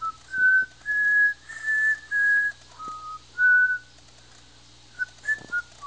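A person whistling short, single notes: six brief whistles in a row, one of them lower, then a pause and three quick chirps near the end.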